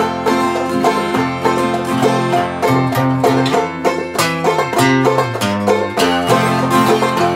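Clawhammer banjo and acoustic guitar playing together, a purely instrumental stretch with no singing.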